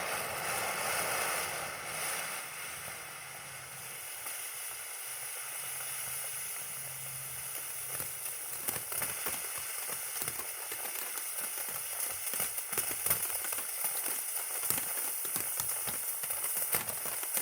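TNT Fireworks 'Wild Dog' ground fountain burning, spraying sparks with a steady hiss; from about halfway through, a rapid scatter of small ticks and pops joins the hiss.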